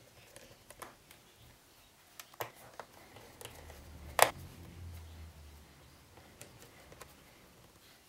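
Small scattered clicks and taps of a jeweller's screwdriver and tiny screws being refitted into a MacBook's plastic bottom case, with one sharper click about four seconds in.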